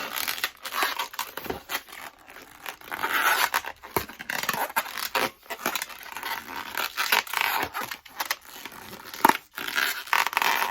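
Long latex modelling balloon being twisted and handled, the rubber rubbing and squeaking under the fingers in an irregular run of scrapes and clicks, with one sharper click about nine seconds in.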